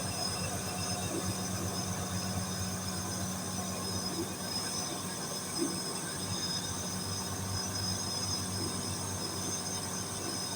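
Packaged air-conditioning unit's motor running with a steady low hum and thin, high-pitched whining tones. This is the noise the technician puts down to a bearing that has to be replaced.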